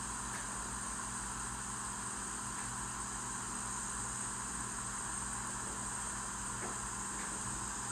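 Steady background noise with no speech: a low hum under an even high hiss, unchanging throughout.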